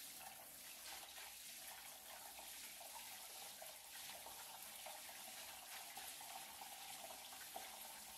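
Faint, steady running water washing down a shower drain as the drain is rinsed out.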